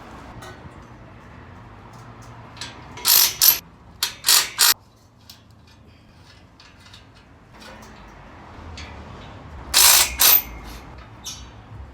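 Ratchet socket wrench clicking in short bursts while bolts are undone: two bursts about three seconds in, two more around four seconds, and two near ten seconds.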